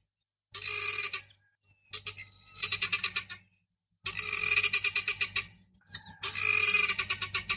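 Guinea fowl calling in rattling bouts of rapid repeated notes, four bouts of about one to one and a half seconds each, with short pauses between.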